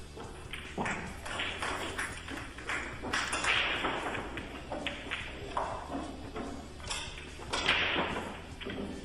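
Pool cue striking the cue ball and billiard balls knocking against each other: several separate sharp clicks.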